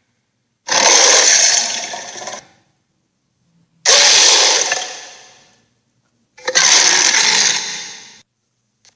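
Dragon roar sound effect, played three times: each roar is a harsh, rasping blast that starts suddenly and loud and trails off over about two seconds, with short silences between.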